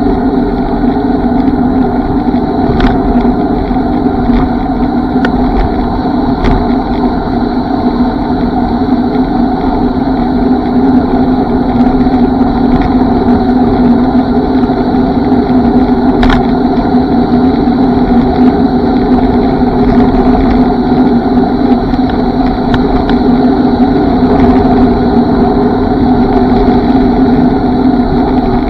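The D6+'s motor running at a steady speed, a constant hum with wind and road rumble under it. A few faint clicks, about 3, 6 and 16 seconds in.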